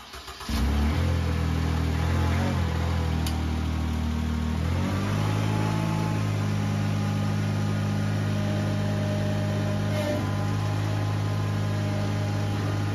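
Ventrac compact tractor's engine running steadily at low speed, then raised to a higher, steady speed about five seconds in.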